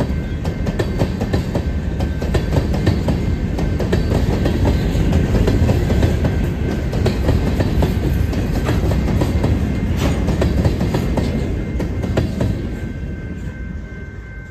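Freight train of covered hopper cars rolling past at close range, a steady low rumble with wheels clicking over the rail joints. The last cars pass near the end and the sound fades away.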